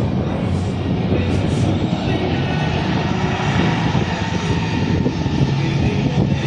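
Jet airliner engines running at high power during takeoff: a loud, steady rumble with a low drone.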